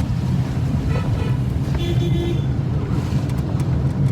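Motor vehicle engine running steadily, with a short horn toot about two seconds in.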